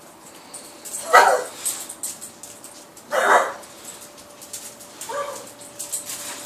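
Dog coughing: two harsh coughs about two seconds apart, then a weaker one near the end.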